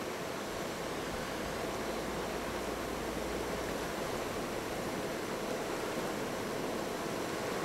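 Whitewater river rapids rushing: a steady, unbroken noise of churning water.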